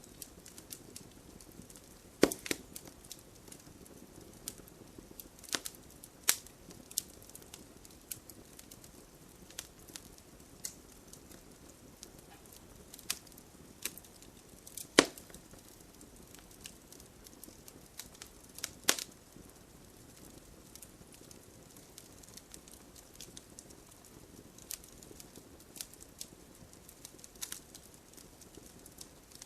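Wood fire burning in a fireplace: a soft steady hiss with irregular crackles and sharp pops of burning wood, the loudest pops about two, six, fifteen and nineteen seconds in.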